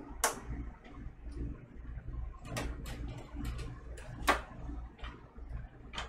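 Sharp plastic clicks and knocks, about six spaced irregularly, as the controls and body of an Audio-Technica AT-LP60XBT belt-drive turntable are pressed and handled. The platter is not turning because its drive belt has come off. A low steady hum runs underneath.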